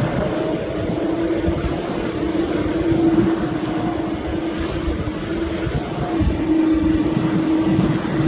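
Airbus A330-300 jet engines running at low thrust while the airliner taxis onto the runway before takeoff: a steady hum over an uneven low rumble.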